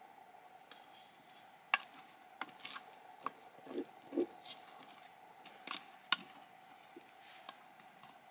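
A metal spoon scraping and knocking inside an aluminium cooking pot as thick cooked grain porridge is spooned out onto a plate. Irregular sharp clicks and scrapes, with two soft dull thuds about four seconds in, over a faint steady hum.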